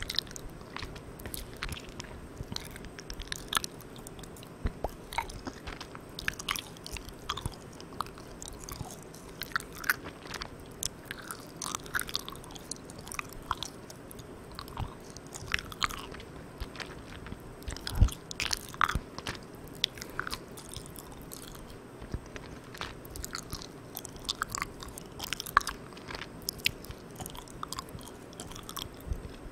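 Close-miked mouth sounds of chewing sticky, chewy Malang Cow marshmallow candy: irregular wet smacks and clicks, with one sharper click about two-thirds of the way in. A steady hiss from the microphone gain turned all the way up sits underneath.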